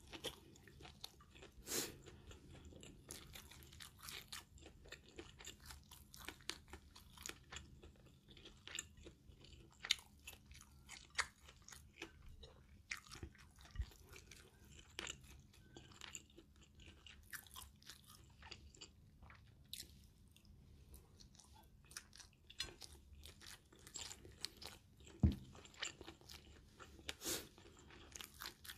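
Close-up chewing and mouth sounds of a person eating minced pork with Thai basil over rice: soft, irregular crunchy clicks, with two louder dull knocks partway through.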